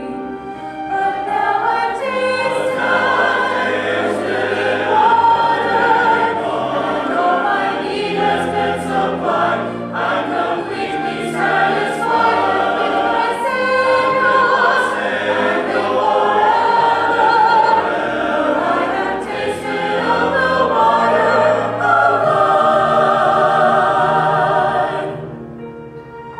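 Mixed choir of men's and women's voices singing a hymn together. Near the end the voices stop and instrumental accompaniment carries on.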